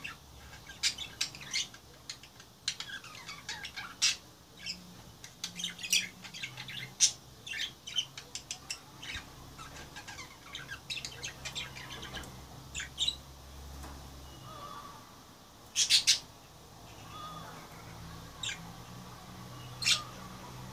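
Budgerigars chirping and chattering in quick short calls, busy for the first half and sparser afterwards, with a few louder squawks, the loudest about 16 seconds in.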